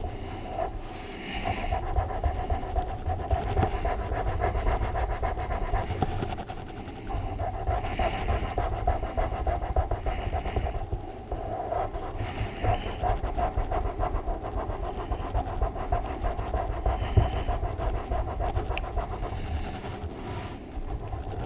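Colouring on a colouring-book page: rapid back-and-forth shading strokes scratching on paper, pressed hard for a dark fill. Heavy breathing close to the microphone comes every couple of seconds.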